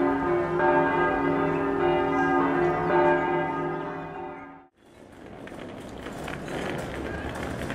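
Church bells ringing: several overlapping struck tones that hum on long after each stroke, fading out about four and a half seconds in. After a short break comes a steady noisy rumble.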